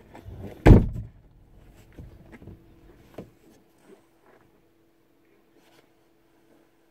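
A car door slamming shut with one heavy thump about a second in, followed by a few lighter knocks, heard from inside the Renault Duster's cabin. After that it is quiet apart from a faint steady hum.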